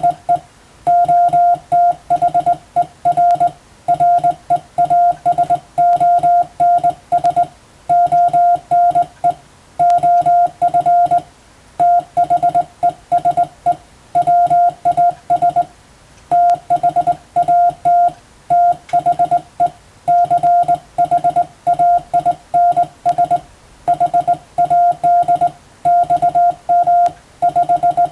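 Hand-sent Morse code (CW): a single steady mid-pitched beep keyed on and off into dots and dashes, forming characters and words with short gaps between them, sending English-language telegram text for receiving practice.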